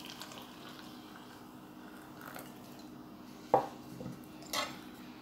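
Tableware sounds: water poured into a glass mug at the start, then one sharp clink about three and a half seconds in and two lighter knocks within the next second.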